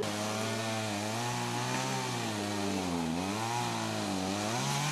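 A small engine running steadily, its pitch dipping around the three-second mark and then recovering, with a hiss over it.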